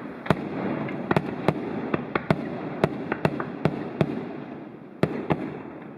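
Fireworks display: a rapid string of sharp bangs, a dozen or more, over a continuous crackle, thinning out and quietening near the end.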